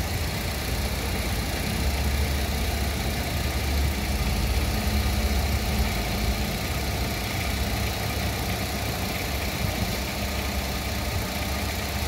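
Car engine idling steadily while warming up on petrol, its LPG system not yet switched over to gas. The low hum swells slightly a couple of seconds in, then settles.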